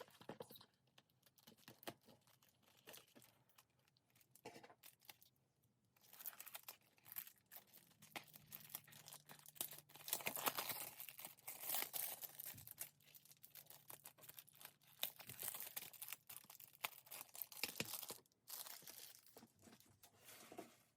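Plastic shrink-wrap being torn and peeled off a CD jewel case, crinkling and crackling in the hands. It comes in scattered bits at first and grows busier from about six seconds in.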